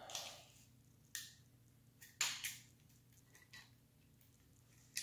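Handling noises: a few short scrapes and rustles of hands moving steel fork tubes and a tape measure on a towel, the loudest about two seconds in.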